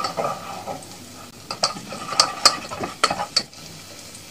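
A spatula stirring and scraping in a cooking pot, with a run of sharp, irregular scrapes and taps against the pot in the middle, over a faint steady hiss.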